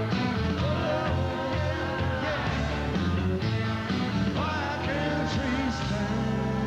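Live rock band playing near the end of a song, with melodic lines gliding in pitch over a steady bass.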